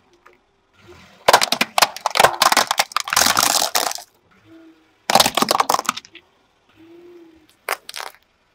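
Hard plastic toy cars cracking and crunching under a car tyre: a long run of rapid sharp cracks, another burst about five seconds in, and two short snaps near the end.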